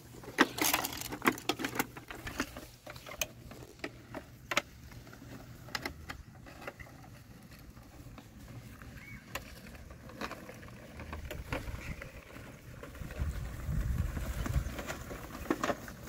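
Plastic clicks and knocks from a Bruder John Deere toy combine harvester being handled and set down, loudest in the first couple of seconds, followed by scattered light taps. A low rumble swells near the end.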